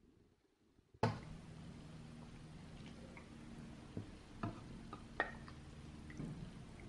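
A few light clicks and taps of eating utensils against dishes during a meal, over a steady low hum. They begin after a sharp click about a second in.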